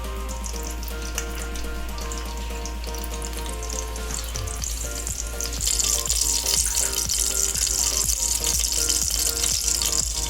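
Food frying in hot oil, a crackling sizzle that swells and turns much louder about six seconds in, over background music.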